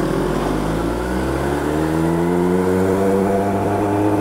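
Kawasaki ZX-10R's inline-four engine accelerating, its pitch rising steadily over the first few seconds and then holding at a steady higher speed.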